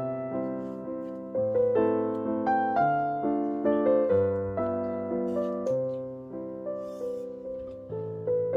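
Background piano music: a gentle melody of single notes over low chords, each note struck and dying away.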